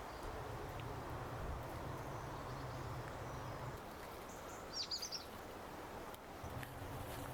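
Quiet outdoor ambience with a low rumble, and a small bird giving a brief run of high chirps about five seconds in.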